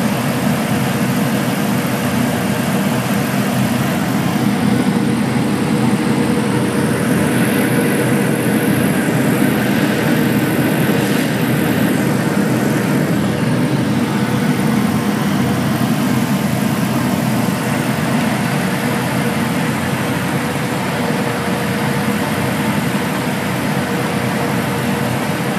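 Heavy engine running steadily, with a constant whine over a low rumble.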